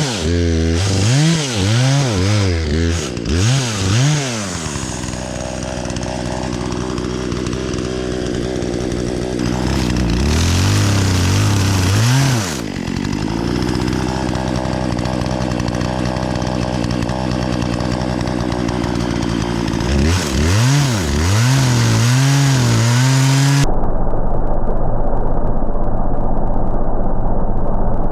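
Chainsaw engine revved up and down several times, then held at high speed for long stretches, as when cutting through wood, with more revving in between. Near the end it cuts off abruptly into a different steady low hum with the high end missing.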